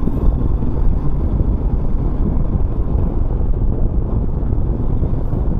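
Royal Enfield Himalayan motorcycle running steadily on the road, with wind rumbling on the rider's microphone.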